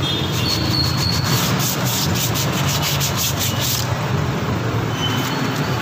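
Sandpaper rubbed by hand in repeated back-and-forth strokes over a drum brake shoe lining, a steady scratchy rasp. It scuffs the lining flat so the shoe sits evenly and grips the drum well.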